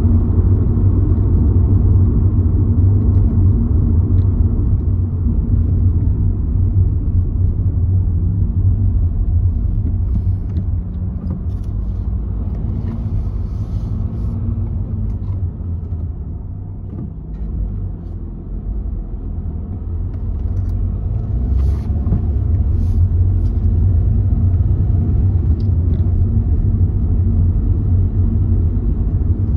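Steady low rumble of a car's engine and tyres on the road, heard from inside the moving car. It grows quieter in the middle and then builds again, with a few faint clicks.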